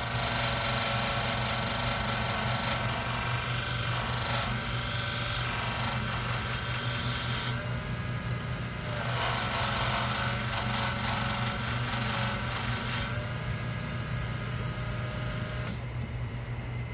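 A blade being ground on a spinning 9-micron CBN sanding disc driven by an electric motor: a steady motor hum under a hissing grind that shifts as the blade is worked, the grinding stopping abruptly about sixteen seconds in.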